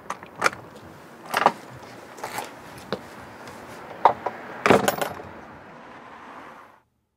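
Garden shears snipping at a hedge: a series of irregular sharp clicks, with a quick run of several snips about five seconds in, over a low steady hiss that cuts off suddenly near the end.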